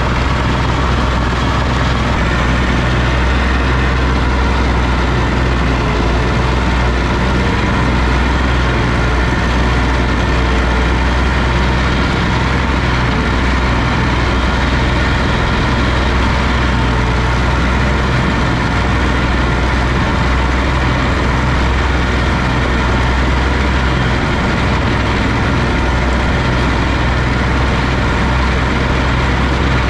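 Oliver OC-6 crawler tractor's engine running at a steady speed, a loud, even low drone.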